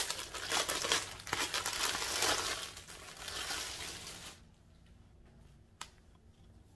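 Clear plastic poly bag crinkling and rustling for about four seconds as it is pulled open to take out a t-shirt, then going quiet, with a single sharp click about six seconds in.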